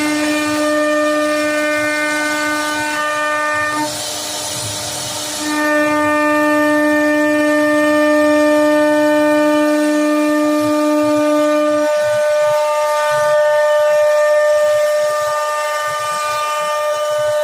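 CNC router spindle whining at a steady pitch with a stack of overtones while carving wood, with a hiss of cutting noise for about a second and a half partway through and a slight drop in pitch later on.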